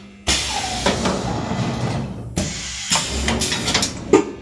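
Carton filling and sealing machine running under trial: a loud hiss with several sharp mechanical knocks. The hiss starts suddenly just after the start and breaks off briefly about two seconds in.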